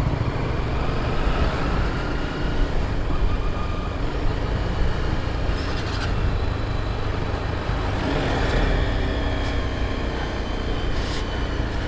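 Honda sport motorcycle riding slowly through town traffic, its engine giving a steady low rumble under road and wind noise.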